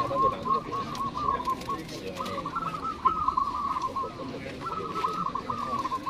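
Several caged zebra doves (perkutut) singing at once: overlapping runs of quick, short, rising-and-falling cooing notes, pausing briefly twice.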